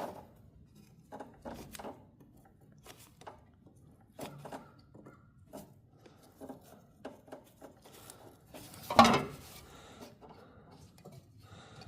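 Scattered light clicks, taps and rubbing of hands working at a wire connection on an old snowblower engine, trying to work it loose, with one louder knock about nine seconds in.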